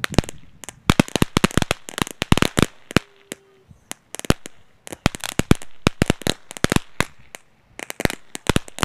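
Ground fountain firework going off, its spark spray giving rapid, irregular crackling pops that come in dense clusters with short lulls between them.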